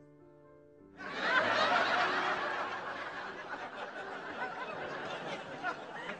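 Studio audience laughing. The laughter breaks out suddenly about a second in, is loudest at first, and carries on steadily.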